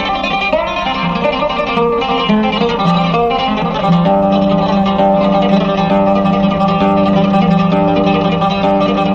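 Instrumental interlude between sung verses of a Yemeni wedding song: a plucked-string melody over sustained notes, with no singing.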